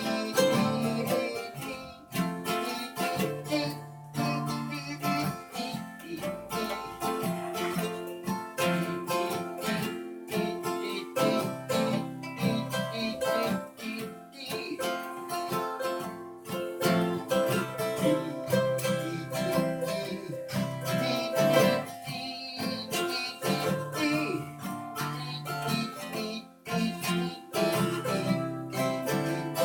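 Instrumental music: plucked guitar playing a picked melody over chords, with quick, even note attacks.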